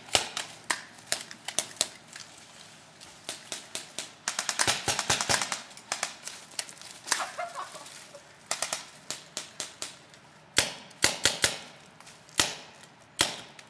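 Sharp cracks, some single and some in quick runs, the longest run about four seconds in and further clusters near the end.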